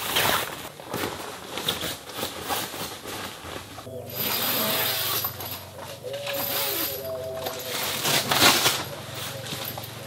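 Heavy canvas tent door flap being unrolled and pulled about by hand: rustling, flapping fabric with sharp crackles and small clicks from its fastenings. A faint steady hum and wavering tone sit underneath from about four seconds in.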